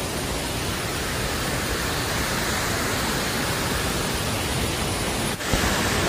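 Small waterfall pouring over rocks into a stream, a steady, even rush of water. It breaks off briefly near the end and then carries on.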